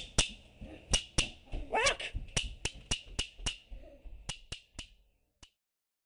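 Cartoon pecking sound effect of a bird's beak hammering a rock: a dozen or so sharp knocks at an uneven pace, fading and stopping about five seconds in. A short rising squeal comes about two seconds in.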